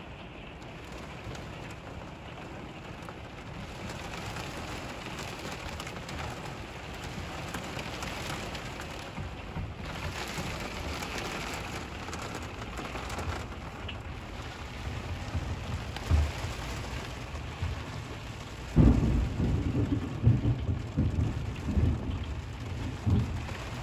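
Heavy rain pouring steadily and growing heavier. About two-thirds of the way through, a sudden clap of thunder breaks into a deep rumble that rolls on in uneven swells.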